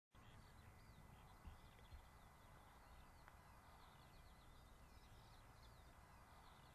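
Near silence: faint outdoor ambience with small birds chirping repeatedly in the background.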